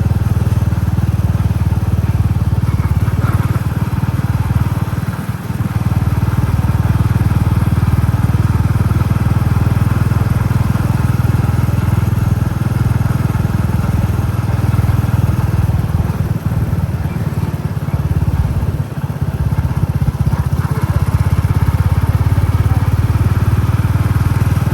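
Royal Enfield Classic 350's single-cylinder engine and exhaust thumping steadily while riding, with brief dips in level about five seconds in and again around sixteen to nineteen seconds.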